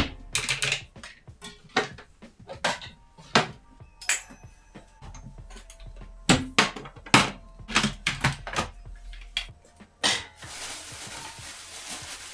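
Kitchenware clattering: dishes and utensils clinking and knocking in irregular sharp strokes. A little over ten seconds in, a steady sizzle of food frying in a hot pan begins.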